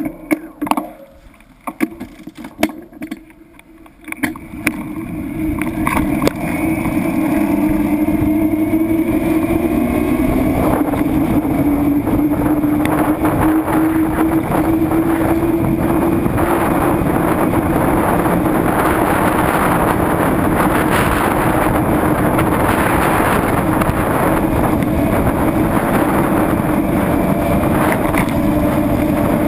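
A vehicle's engine and road and wind noise swell over the first few seconds, then run on as a steady drone at cruising speed, its pitch rising a little about ten seconds in.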